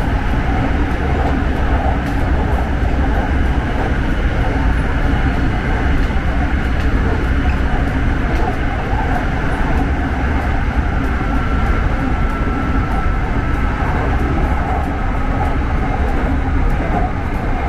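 SRT Red Line electric commuter train running, heard from inside the carriage: a steady low rumble, with a faint high whine briefly about two-thirds of the way through.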